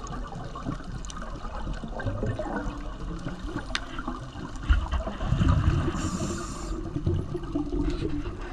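Underwater sound through a camera housing: a steady crackle of small clicks over a low water rumble, with a louder rush of bubbles about five seconds in, typical of a scuba diver exhaling through a regulator.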